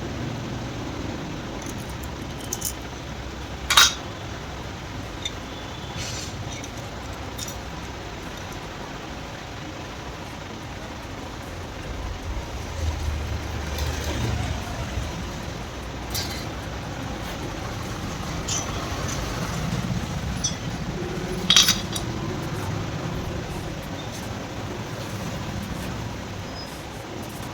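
Metal tools and engine parts clinking and clicking during hand work on a motorcycle engine's top end, with a few sharp metallic clicks over a low steady background noise.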